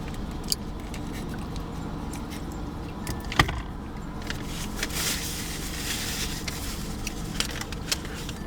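Steady low rumble of a vehicle engine or road traffic, with scattered small clicks and rustles from handling food and packaging. A sharp click comes about three and a half seconds in.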